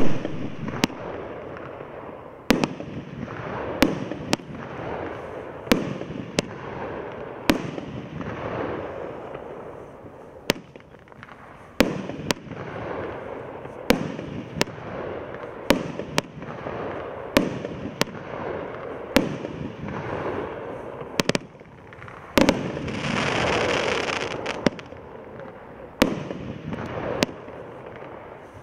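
A 500-gram, 24-shot firework cake firing, with a sharp bang from a launch or burst every second or two. Strobe stars crackle in between. About three quarters of the way through comes a louder rushing hiss lasting about two seconds.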